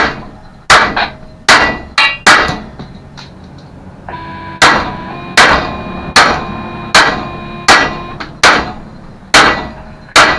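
A hammer striking metal about thirteen times, each blow ringing. A quick group of five comes first, then a pause of about two seconds, then a steady run of blows a little under a second apart.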